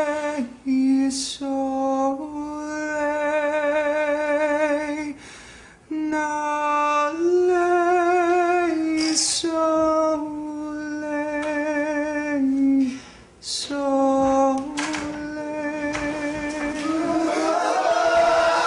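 A solo voice singing slow, long-held notes with a wide vibrato, in phrases separated by short breaths. Near the end a fuller, choir-like swell of voices comes in under it.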